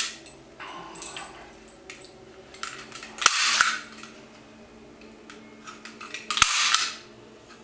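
Arrow T50 heavy-duty manual staple gun firing with sharp, loud snaps: the two loudest come about three seconds apart, with a similar one right at the start. Between them are smaller clicks and rattles as the stapler is handled.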